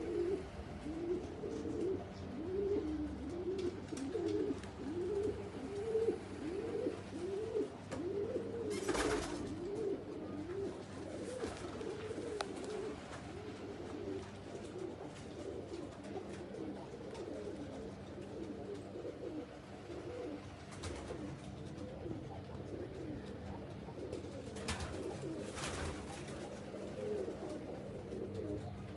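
Several domestic pigeons cooing together, their coos overlapping and repeating, with two brief rustling bursts about nine seconds in and again near twenty-five seconds.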